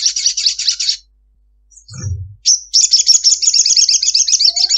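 Olive-backed sunbird singing a long, fast, high chattering trill. It breaks off about a second in, a short low thump follows, and the trill starts again shortly after and runs on.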